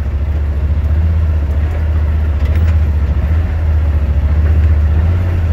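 Yamaha RMAX 1000 side-by-side heard from inside the cab: its parallel-twin engine holds a steady low drone while engine braking down a steep hill in high range at about 4 mph, with no brake applied.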